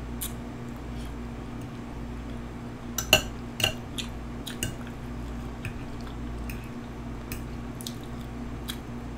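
Close-miked eating: soft wet mouth clicks and smacks of chewing, with a few sharper clicks about three seconds in, over a steady low hum.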